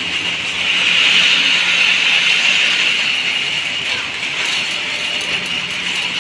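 Steady mechanical din of workshop machinery running, with a low steady hum underneath and faint quick ticking in the second half.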